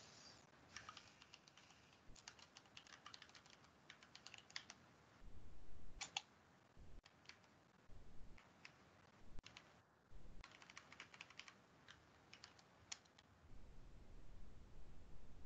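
Faint computer keyboard typing: bursts of quick keystrokes with short pauses between them.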